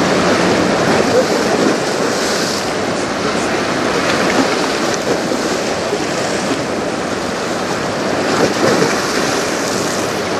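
Steady rush of river water washing against the shore, with some wind.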